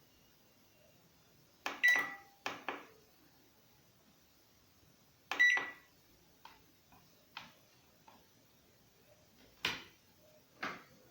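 Push buttons wired into an LG microwave oven's control panel in place of its failed touch pad, pressed one after another with sharp clicks. Twice, early in the sequence, the microwave answers a press with a short high beep; the later presses give only clicks.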